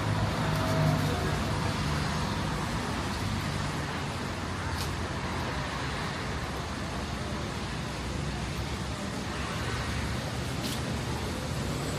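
City street traffic, vehicles running past in a steady wash of noise, with a low engine hum in the first seconds.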